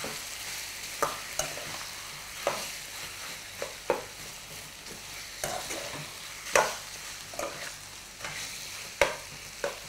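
Metal ladle stirring chicken pieces frying with tomatoes in a stainless-steel pan: a steady sizzle with irregular scrapes and clinks of the ladle against the pan, about one a second.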